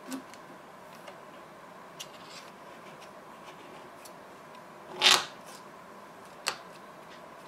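A window-track rail being handled and pressed into place along a wooden window frame: scattered light clicks and taps, a louder knock about five seconds in, and a sharp click a moment later.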